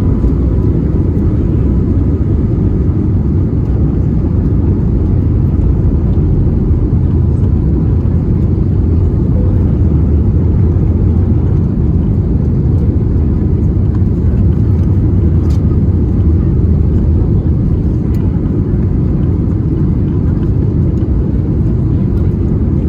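Airbus A321neo jet engines and airflow making a loud, steady low rumble during takeoff, which sounds like it is heard from inside the cabin.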